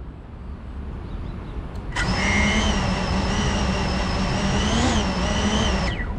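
An FPV cinewhoop drone's brushless motors and propellers whine at a steady idle while it sits on the ground. The whine starts abruptly about two seconds in, rises briefly in pitch just before five seconds, and cuts off suddenly near the end, as when the motors are armed and then disarmed.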